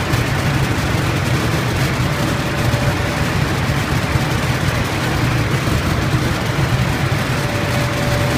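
Steady hum and hiss of food-processing machinery running on a roasted-peanut colour sorting line, with no change in level.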